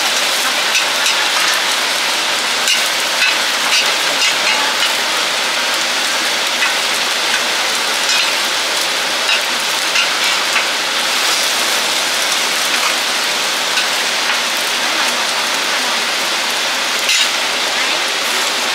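Taiwanese oyster omelettes sizzling steadily in oil on a flat-top griddle, with light scrapes and taps of metal spatulas against the plate.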